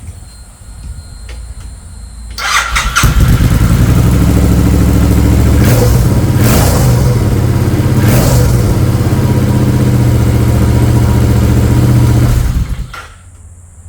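Bobber motorcycle engine started on its stock exhaust, whose silencers have had their insides removed. The starter cranks about two and a half seconds in, the engine catches and runs loudly with a few brief surges, then is switched off about a second before the end.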